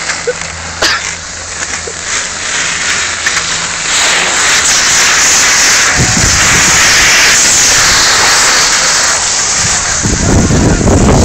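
Cross-country skis hissing as they slide over snow, with wind buffeting the phone's microphone. A sharp click comes about a second in. The hiss grows louder about four seconds in as speed picks up, and low wind rumble comes in about six seconds in and again near the end.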